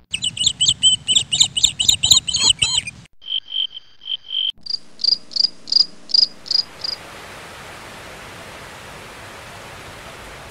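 Cricket-like insect chirping in abruptly cut stretches: a dense jumble of high chirps for about three seconds, then a run of evenly spaced chirps, higher in pitch after a brief break. A steady hiss follows for the last few seconds.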